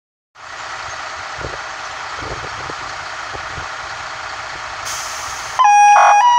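Two MAN TGM fire engines idling with a steady hiss and low rumble; about five and a half seconds in, a loud two-tone emergency warning signal starts, its pitch stepping between a higher and a lower note.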